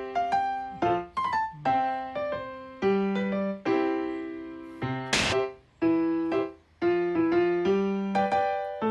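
Background piano music: a melody of struck notes, each ringing and fading. About five seconds in comes one short, sharp noisy hit.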